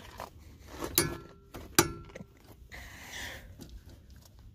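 Two sharp metallic clinks, a little under a second apart, each with a brief ring, from a torque wrench and 36 mm socket on a car's front axle nut, with smaller clicks and a faint rustle between.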